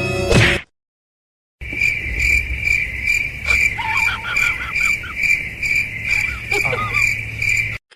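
Crickets chirping in a steady pulsing trill, about two pulses a second, starting about a second and a half in after a brief silence. A few short squeaky calls sound over it in the middle and again near the end.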